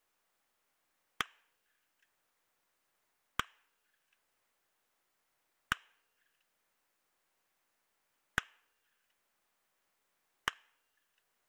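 Colt New Service revolver, a 1916 British-contract gun in .455 Eley converted to take .45 Colt, fired five single shots of handloaded .45 Colt, two to three seconds apart. Each is a sharp crack that dies away quickly, and a faint click follows some of the shots.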